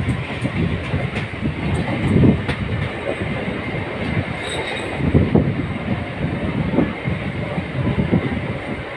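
Local passenger train carriage running along the track, heard from its open doorway: a steady rumble with irregular louder surges of wheel clatter.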